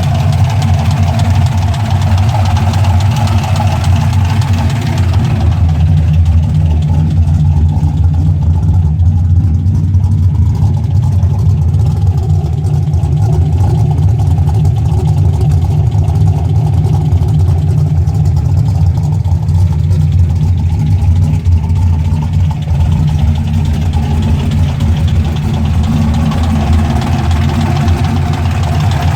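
GM LQ4 6.0-litre V8 idling steadily with lifter noise from failed valve lifters, which had spun in their trays after the cam bolt backed out.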